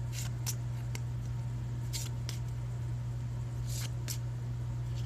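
Pokémon trading cards being handled and flipped through, giving a few short papery flicks and rustles, over a steady low electrical hum.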